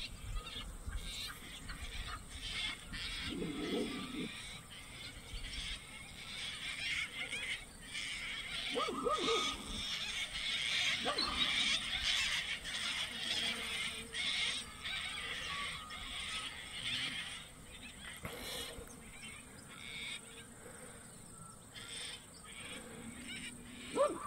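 A dog barking at an eagle perched in a tree overhead, a few short barks spaced several seconds apart over a high, busy background chatter.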